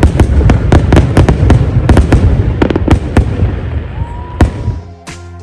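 Fireworks going off in a rapid barrage of sharp bangs and crackles over a deep rumble, thinning out and fading in the last second or so.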